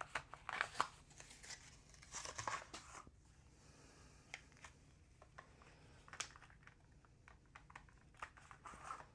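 Quiet handling of coin packaging: crinkling and rustling of paper or plastic with scattered small clicks and taps, the rustling densest in the first three seconds.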